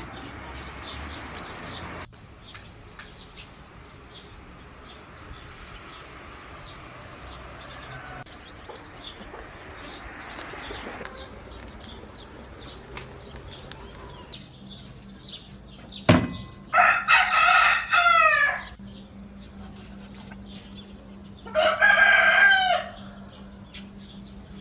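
A rooster crowing twice, each crow about one to two seconds long, the second about four seconds after the first. A sharp knock comes just before the first crow.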